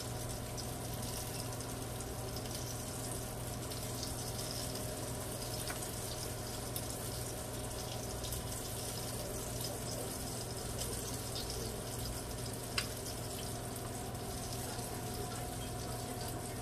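Breaded tilapia fillets sizzling steadily in hot oil in a frying pan, a fine crackling hiss, with a steady low hum underneath and one sharp click about thirteen seconds in.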